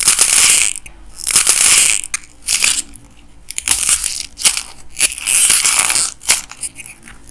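Clay crunching and crackling as hands squeeze and tear it apart, in a series of crisp crackling bursts about once a second, the loudest at the very start.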